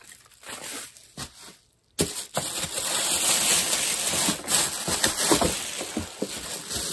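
Plastic packaging rustling and crinkling as it is handled. It is faint at first, then about two seconds in becomes loud and continuous, with many small crackles.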